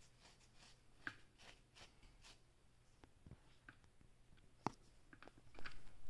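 A comb and fingers scratching through short, dandruff-flaked hair on a scalp: a run of short, faint scratchy strokes with a few sharp clicks, louder and busier near the end.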